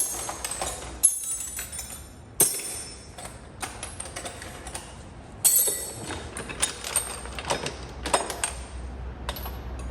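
Small metal wrenches clinking and clattering against one another as they are picked up and set down, with a few louder metallic clanks scattered among the lighter clicks.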